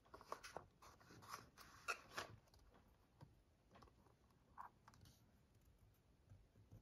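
A small paperboard box of Aguila .22LR cartridges handled and picked at with fingers and a fingernail, working at its end flap: a run of short scrapes and rustles over the first two seconds or so, then a few faint scratches.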